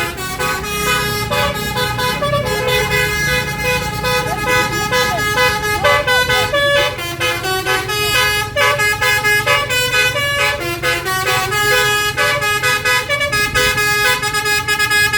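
Telolet basuri musical horn on a tour bus playing a quick tune of tooting notes that step up and down without pause, over a low engine rumble.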